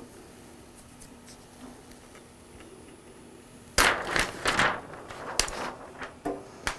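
Paper release liner being peeled free and handled, with loud crackling and rustling starting suddenly about four seconds in. Under it, the faint steady hum of a roll laminator's motor.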